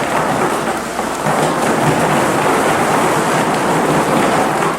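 Frozen icewine grapes being dumped from a bin into a wine press, a steady dense pouring noise.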